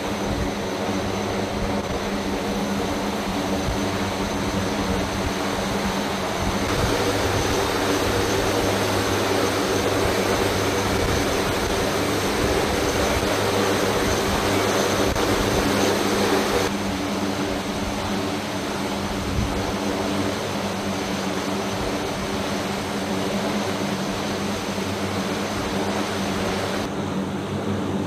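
Turboprop engines of an MC-130J Commando II running on the ground: a steady, loud drone with several held tones and a high whine over a rushing hiss. The sound shifts abruptly in level twice, about a quarter and about two-thirds of the way through.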